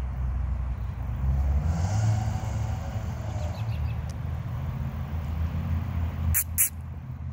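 Steady low outdoor rumble, with a faint hiss swelling about two seconds in and two short, sharp high-pitched sounds in quick succession just after six seconds.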